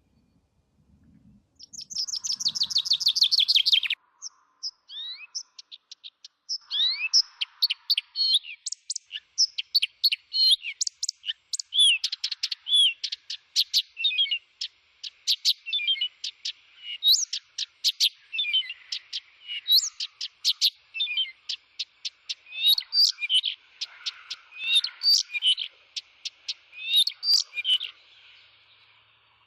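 A songbird singing: a fast dry trill about two seconds in, then a long, rapid song of varied chirps and whistled notes that stops shortly before the end.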